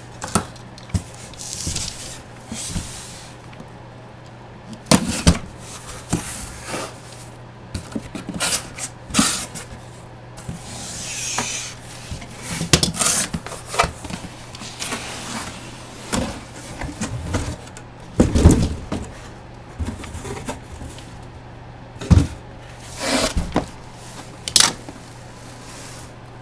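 Packaging being handled and opened: scattered clicks, knocks and crinkling rustles, with a heavier thump about two-thirds of the way through, over a steady low hum.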